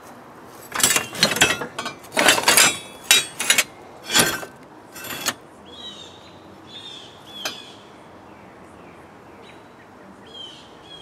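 Scrap metal clanking and rattling as pieces are shifted in a junk pile: a run of sharp, ringing clatters for about four seconds. After that it goes quieter, and birds chirp with short, falling calls.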